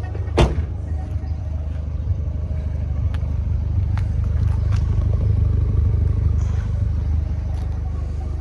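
Ford Fiesta Zetec S engine idling steadily, heard from close to its exhaust tailpipe. It grows louder through the middle as the tailpipe is neared. A single sharp knock about half a second in.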